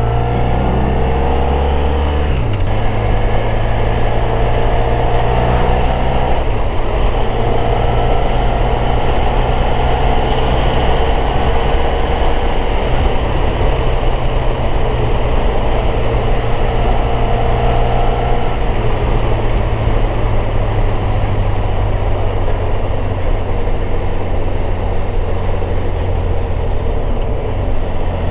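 Motorcycle engine running at a steady cruising speed with wind rushing over the bike-mounted microphone. The engine note shifts abruptly about two and a half seconds in and again about six seconds in.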